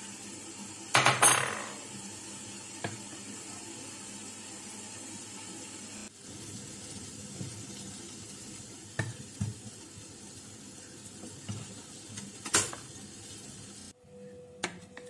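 Wooden spatula stirring milk in a metal pot, with a loud clatter about a second in as the bowl of gelatine solution meets the pot, then several light knocks of the spatula against the pot's side over a steady background hiss.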